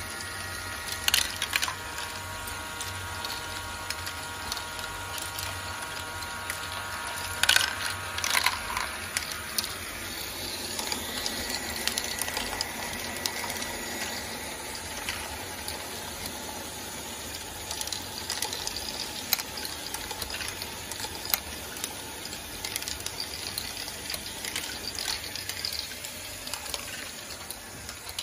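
Lego Great Ball Contraption modules running: small plastic balls clattering and rolling through Lego Technic lifts and chutes in a steady rattle of clicks, with sharp clacks about a second in and again about seven and a half seconds in. A Lego motor whines steadily under it for the first third.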